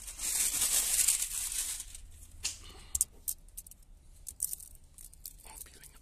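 Old, bubbled window tint film being peeled off the inside of a car's rear windscreen: a long tearing, crinkling rip for about the first two seconds, then scattered crackles as the film comes away from the glass.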